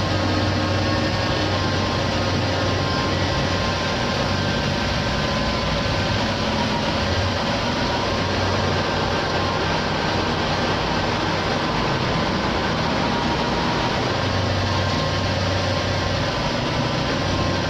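Honda Accord's 3.5-litre V6 engine running steadily, an even hum with no changes in speed.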